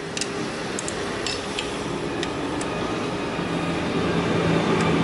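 Steady mechanical hum with a few light metallic clinks in the first half.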